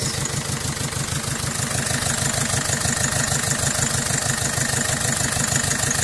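Peugeot Expert van's engine idling steadily with an even, regular beat.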